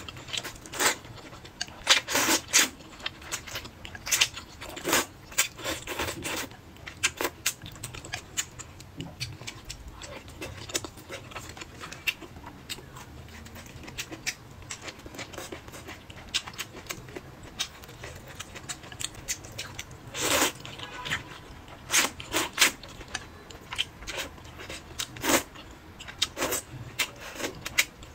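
Close-up eating sounds: noodles slurped from chopsticks and wet chewing. They come in irregular short bursts, with the loudest slurps about two seconds in and again around twenty to twenty-five seconds in.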